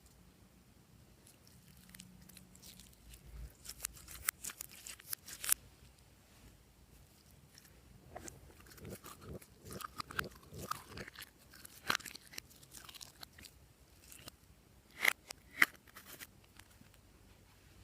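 Glossy slime being squeezed and folded by hand, giving irregular sticky clicks, crackles and wet pops, with a louder run of clicks about four to five seconds in and two sharp snaps near the end.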